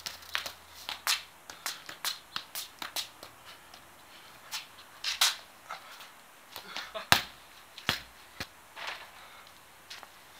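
Soccer ball being tapped and juggled with the feet, with shoes scuffing on concrete: a string of irregular sharp taps, several a second at first and sparser later, the loudest touches about five and seven seconds in.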